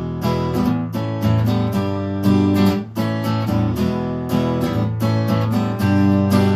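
Acoustic guitar strummed in a steady rhythm: the song's opening chords before the vocals.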